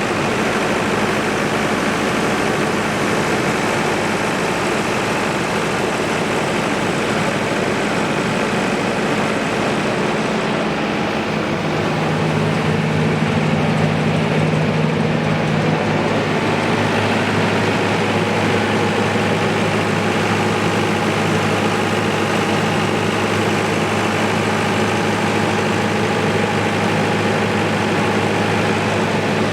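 Cummins S3.8 four-cylinder diesel engine of a 68 kVA generator set running steadily; its note shifts slightly and grows a little louder about twelve seconds in.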